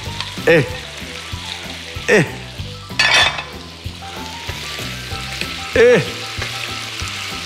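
Rabbit pieces and diced fried potatoes sizzling in a hot frying pan as they are tipped in and stirred together with two wooden spatulas. Four short, loud scrapes of the spatulas against the pan stand out over the steady sizzle.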